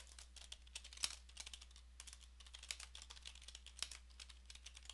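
Typing on a computer keyboard: a quick, irregular run of faint key clicks.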